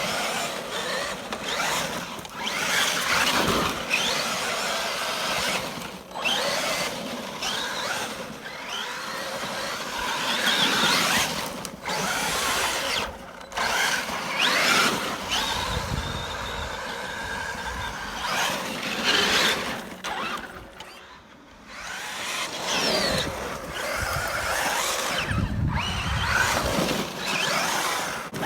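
Traxxas Maxx RC monster truck driving in bursts: its brushless electric motor whines up and down in pitch with each throttle push, over the rush of its tyres, with a brief lull a little after two-thirds of the way through.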